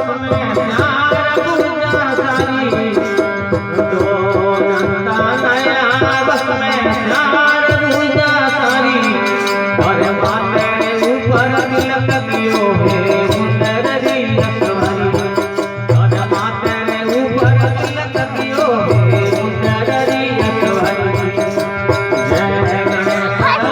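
Devotional Ganesh bhajan music: a melody over a steady hand-drum beat with jingling percussion.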